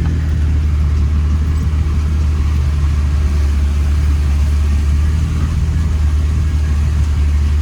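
Motor vehicle engine running steadily, a constant low drone with no sudden changes.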